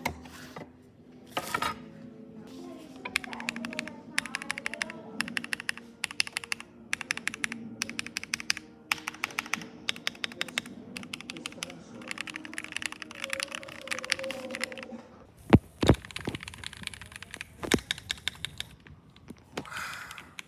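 Typing on a Keychron C3 Pro mechanical keyboard: bursts of rapid key clicks, with a few separate, louder knocks after about fifteen seconds.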